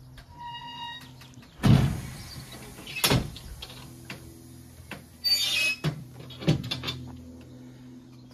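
Heavy door thuds and clanks, the loudest about two seconds in, over a steady low hum, with a short beep near the start and a brief hiss about five seconds in.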